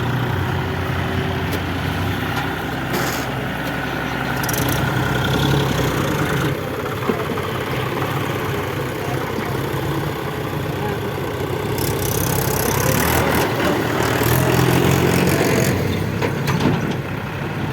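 Heavy diesel machinery running steadily: a low engine drone throughout, growing louder for a couple of seconds near the end.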